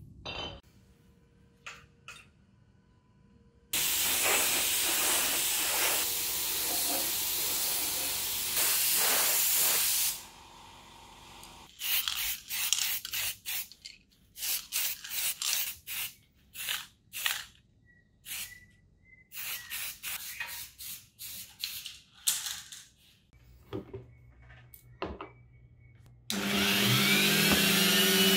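Aerosol spray paint can hissing, first in one long steady spray of about six seconds, then in many short bursts. Near the end a handheld rotary tool starts up and runs, working a small metal part.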